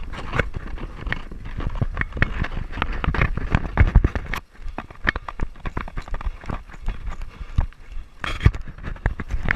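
Running footsteps on a dirt trail, heard through a body-worn action camera that jolts with each stride: a rapid, uneven series of thuds, briefly easing about halfway through.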